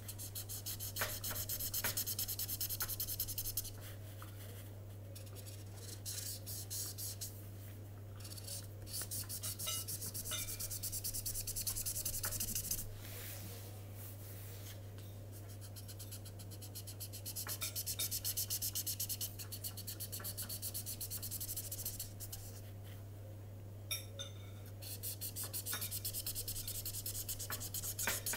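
Marker pen rubbing on paper in quick back-and-forth colouring strokes, in four spells of a few seconds each with pauses between.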